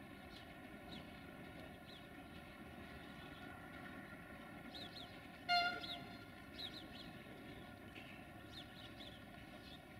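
A short, loud toot from a railway locomotive horn about halfway through, over a faint steady hum with birds chirping.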